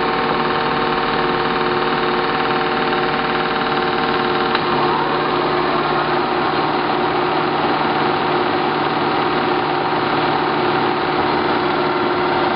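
Clausing Colchester 1755 geared-head engine lathe running, its headstock gears whining steadily with several tones. About four and a half seconds in there is a click and the gear whine shifts to a different pitch pattern.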